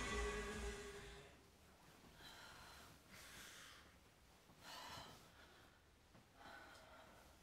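Music fading out in the first second, then several faint, short breaths and sighs a second or two apart, as from people stirring awake in bed.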